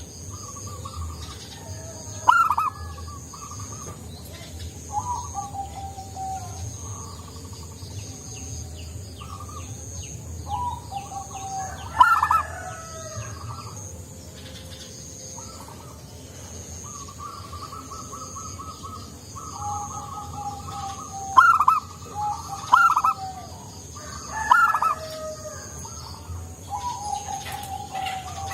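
Zebra dove (perkutut) cooing in repeated phrases: several loud coos at irregular spacing, with softer falling notes and trilled runs between them.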